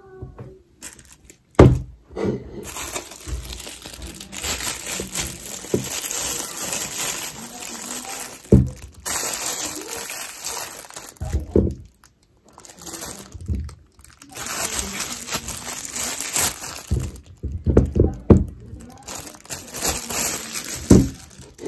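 Thin clear plastic bag crinkling and rustling close up as peeled potatoes are pulled out of it, in several bouts with short pauses. A few dull knocks come as the potatoes are set on a wooden cutting board; the sharpest and loudest is about one and a half seconds in.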